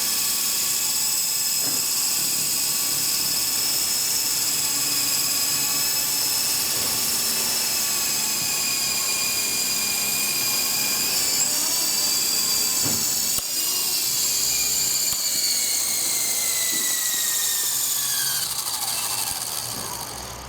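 Double Horse 9053 coaxial RC helicopter's small electric motors and rotors running with a steady high-pitched whine, then winding down in pitch and fading near the end as the throttle comes down for landing.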